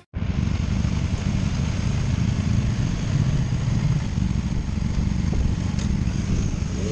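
Motorcycle running at a steady pace, a steady low rumble that cuts in suddenly, with no rise or fall in revs.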